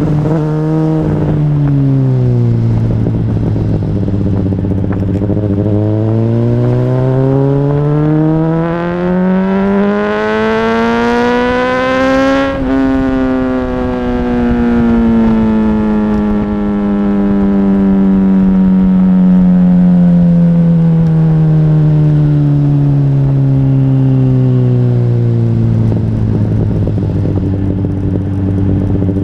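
Honda CBR600RR inline-four engine under way. It settles at low revs, then climbs steadily in one long pull for about six seconds. Near the middle the throttle comes off and the revs fall slowly as the bike slows, levelling out low near the end.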